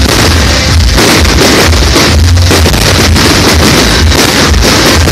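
Loud music with heavy bass from a party sound system.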